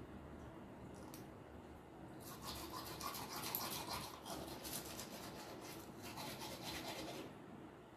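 Manual toothbrush scrubbing teeth in rapid back-and-forth strokes, a faint scratchy brushing that starts about two seconds in and stops near the end.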